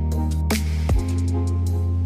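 Background music: an electronic track with a held bass line and drum hits.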